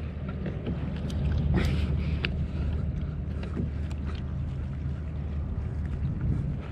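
Wind rumbling on the camera microphone and water moving against a kayak hull, with a few short, sharp sounds about two seconds in.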